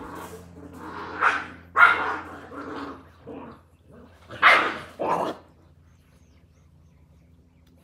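Australian cattle dog (blue heeler) puppies barking in play: a run of short, sharp barks over the first five seconds or so, the loudest about two seconds and four and a half seconds in.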